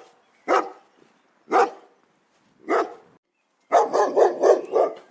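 A dog barking: three single barks about a second apart, then a quick run of about five barks near the end.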